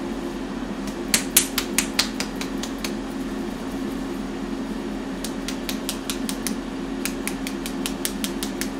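A herb salt shaker being shaken hard over food, making quick runs of sharp clicks, several a second, in three bursts; the seasoning is slow to come out. A steady appliance hum runs underneath.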